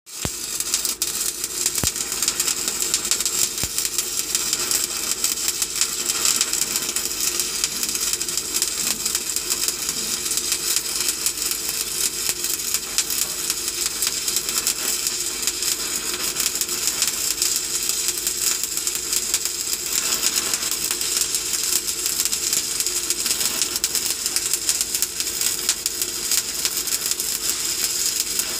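Electric arc welding: the arc crackling and sizzling steadily in a dense stream of fine pops, with a faint steady hum underneath.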